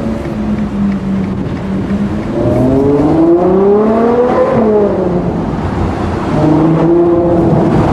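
Ferrari 812 GTS's 6.5-litre naturally aspirated V12 pulling under acceleration. Its pitch rises for about two seconds to a peak, drops away sharply, then climbs again near the end.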